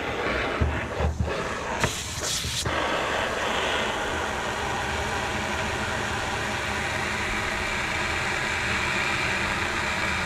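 Water from a garden hose running into the removed steel fuel tank of a 1988 Ford E250 van, a steady rushing sound, after a few knocks and a short burst of spray in the first couple of seconds. The tank is being filled with water to find a leak.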